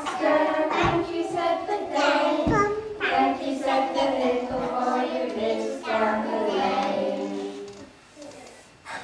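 A group of young children singing together, the song stopping shortly before the end.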